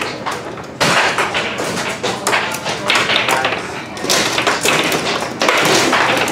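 Foosball table in fast play: rapid clacks and knocks of the ball against the players and of the rods being jerked and spun, coming in dense flurries.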